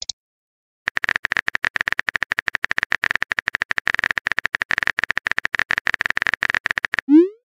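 Phone keyboard typing sound effect: a rapid, even run of key clicks starting about a second in, then a short rising bloop near the end as the message is sent.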